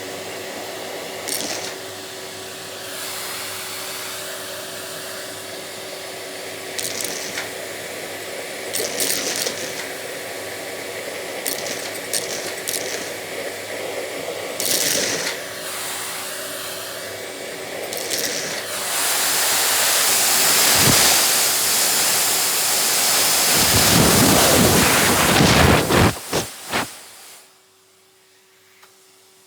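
Vacuum cleaner running while it sucks up custard apple seeds, which rattle and click up the nozzle every few seconds. The suction gets louder for several seconds past the middle, and after a few sharp clicks the sound cuts off near the end.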